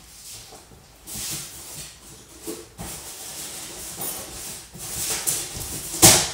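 Cardboard packaging rustling and scraping as parts are taken out of a box, with one loud knock about six seconds in.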